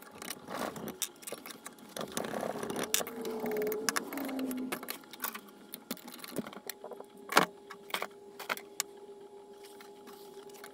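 Small metal parts of an intake heater screen clicking, clinking and tapping as they are worked loose by hand, with a brief faint squeak a few seconds in.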